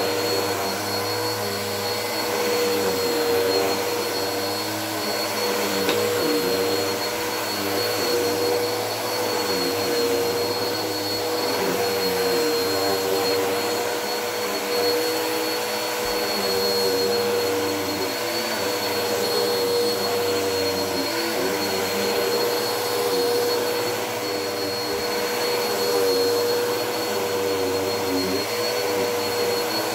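Bissell vacuum cleaner running steadily while vacuuming, a constant motor whine with a steady high tone on top.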